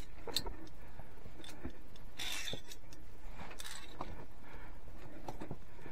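Light scattered clicks and scrapes from a climber's via ferrata lanyard and metal carabiners, and from hands on limestone, with a couple of short hisses.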